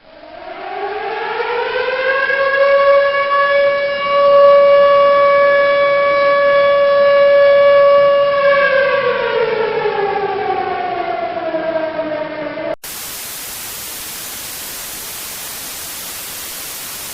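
Civil defense siren winding up to a steady tone, holding it for about six seconds, then winding down. About 13 seconds in it cuts off suddenly into a steady hiss of static: the station going off the air.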